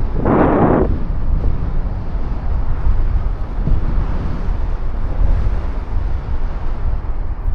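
Strong wind buffeting the microphone as a steady low rumble, with one brief louder rush less than a second in.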